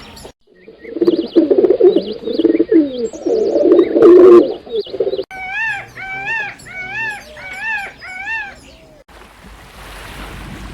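Pigeon cooing in a loud, low warble for about five seconds, followed by a different bird call repeated about six times at a higher pitch, and a short stretch of hiss near the end.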